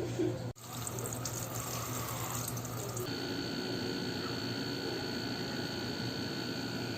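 Steady rush of running water, like a tap, broken by a brief dropout about half a second in. A steady high whine joins it about three seconds in.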